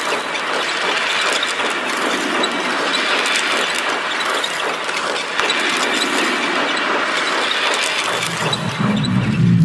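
Machinery sound effects: a dense, steady clatter and whirr of working machines, with squeaks and ratchet-like clicks running through it. A low hum comes in near the end.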